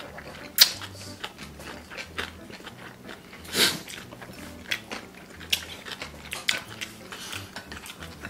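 Two people eating cold spicy whelk noodles: chewing and slurping, with metal chopsticks clicking against glass bowls. The longest and loudest slurp comes about three and a half seconds in.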